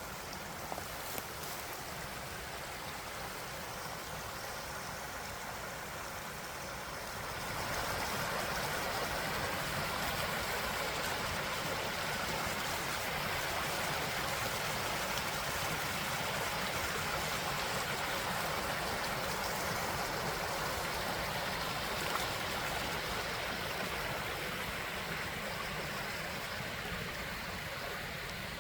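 A small creek running, a steady rush of water that gets louder about seven seconds in.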